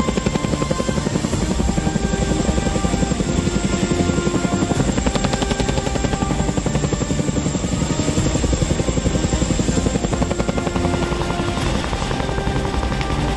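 Boeing CH-47 Chinook helicopter's tandem rotors running with a rapid, steady blade chop, with music playing over it.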